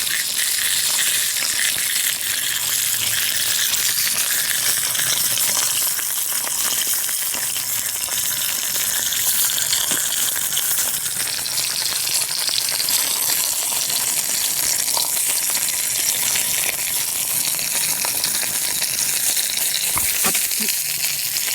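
Meat sizzling steadily on a hot iron griddle plate, a constant crackling hiss, with a couple of sharp clicks near the end.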